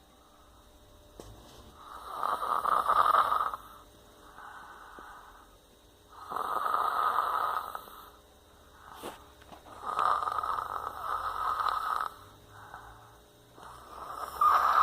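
A sleeping person snoring: four loud snores about every four seconds, each lasting one to two seconds, with softer breaths between them.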